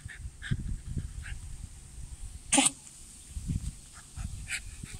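Dog moving about on gravel with a tennis ball, with faint scuffs on the stones now and then. About halfway through there is one short, sharp, loud noise.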